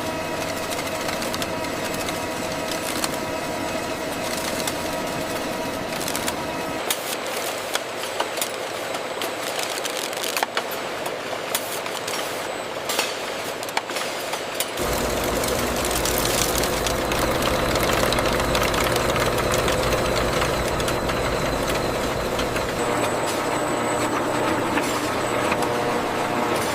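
Machinery running steadily with scattered clicks. The sound changes about 7 seconds in, and about 15 seconds in a deep hum sets in.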